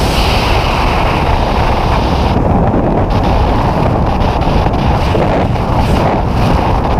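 Loud rushing wind buffeting the microphone, a dense steady roar. The higher hiss falls away about two and a half seconds in.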